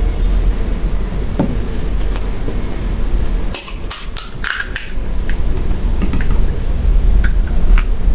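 Crisp pani puri shells crunching, a quick run of five or so sharp cracks about halfway through and a few single ones near the end, over a steady low rumble.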